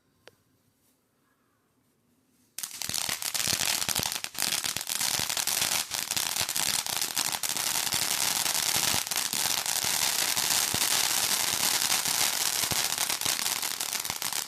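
Crackling cone firework going off: after a small click, dense rapid crackling of many tiny pops starts suddenly about two and a half seconds in and keeps going steadily for about twelve seconds.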